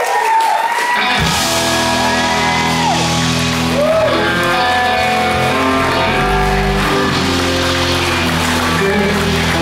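Live blues-rock band music: electric guitar bending notes, then about a second in the bass and drums come in with the full band playing under more guitar bends.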